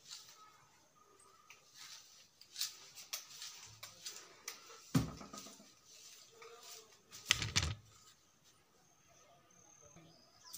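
Light rustling and scraping from moving about a room during housework, broken by two heavy thumps, about five seconds in and again two and a half seconds later, as the filming phone is handled and carried to another room.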